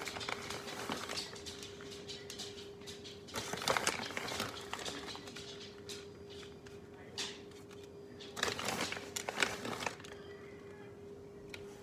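Microwave oven running with a steady hum, with a few brief handling noises over it.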